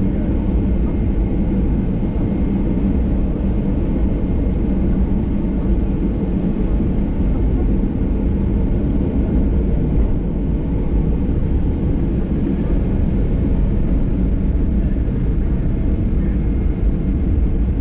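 Boeing 737-800 cabin noise while taxiing: the CFM56 jet engines and airframe give a steady low rumble that neither rises nor falls.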